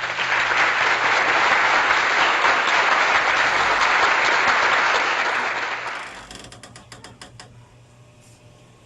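Applause, steady for about six seconds, then dying away into a few scattered claps.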